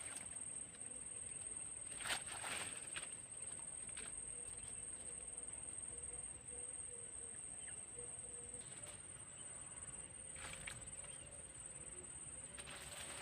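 Insects trilling: one steady high-pitched note. Two or three short rustles or knocks break in, about two seconds in and again near the end.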